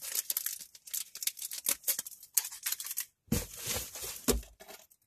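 Packaging being handled: a dense, irregular run of rustling and crinkling, with a couple of dull bumps a little past halfway.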